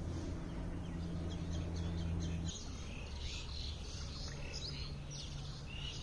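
Small birds chirping and twittering in quick short calls, busiest in the second half, over a low steady hum that drops off about two and a half seconds in.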